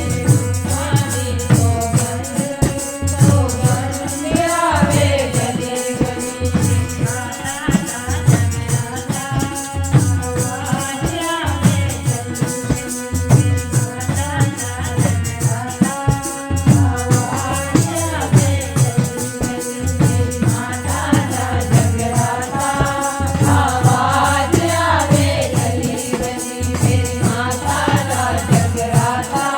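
Hindi devotional bhajan: singing over a steady drum beat and rattling percussion, with a held note running underneath.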